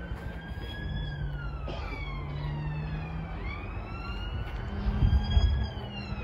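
A siren wailing, its pitch rising and falling slowly, peaking twice, with a brief low rumble about five seconds in.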